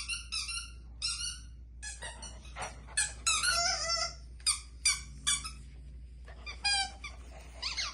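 Dog whining in a rapid series of short, high-pitched whimpers, some wavering up and down in pitch.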